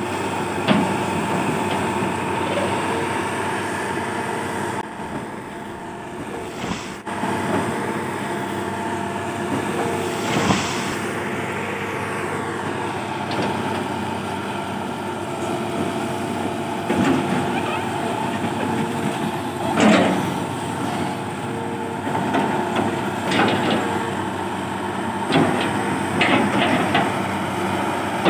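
Sumitomo hydraulic excavator's diesel engine running steadily under load while it pushes over and works an oil palm tree, with occasional sharp cracks and thuds from the trunk and roots.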